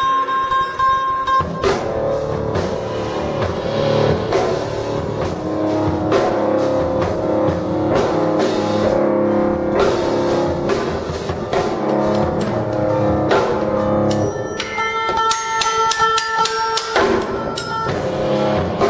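A small band playing live: a resonator guitar picked over a drum kit and another electric stringed instrument. From about fourteen seconds in, a few high sustained ringing tones join in for a couple of seconds.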